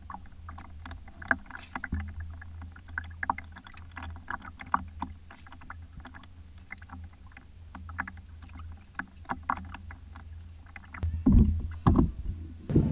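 Water lapping against the hull of a small dinghy, with many light irregular ticks and taps over a low steady hum. A few heavy low thumps come near the end.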